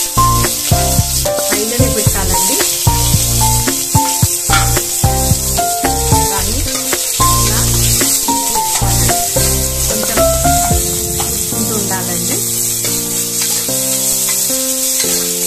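Sliced onions, green chillies and mustard seeds sizzling in hot oil in an aluminium pressure cooker, stirred now and then with a spoon: the tempering as the onions fry toward golden brown. A melody with a bass line plays over it.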